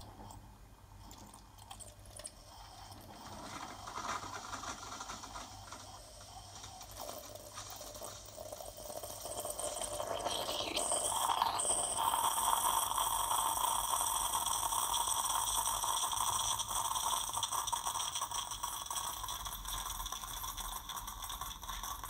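Bosch Tassimo Vivy T12 capsule machine brewing a Costa Americano: coffee streaming from the spout into a glass mug while the machine runs. The sound grows louder and settles into a steady hiss about halfway through.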